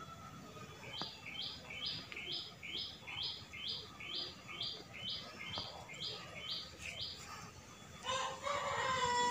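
Bird calls: a short, high two-part chirp repeated about twice a second for some six seconds. About eight seconds in, a louder, longer call starts, falling slightly in pitch.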